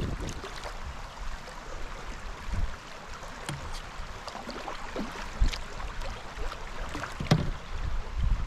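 Paddling a small boat on a river: paddle strokes and water splashing and trickling, with a few sharp knocks, the loudest about five and a half and seven seconds in.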